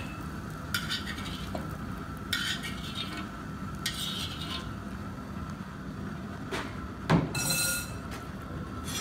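Metal slotted spoon scraping the bottom of a 5-gallon pot three times, scooping rendered bacon out of its hot fat, over the steady low hum of the propane burner. A knock comes about seven seconds in, followed by a brief hiss.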